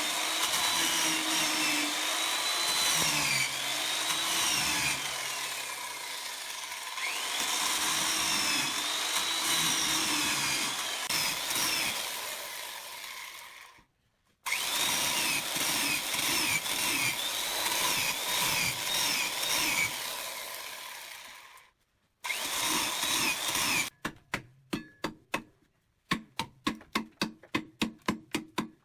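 Power tool cutting wood, its high whine rising and falling as it works; it cuts off suddenly twice. Near the end comes a quick run of sharp knocks, about three a second.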